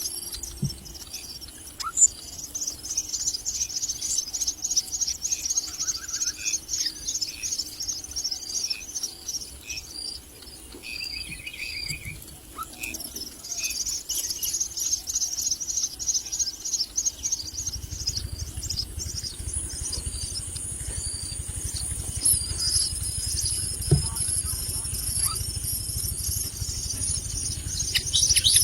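Myna chicks begging with rapid, high-pitched chirping, with a few short lower bird calls. From about two-thirds of the way in, a steady high insect buzz and a low rumble join in.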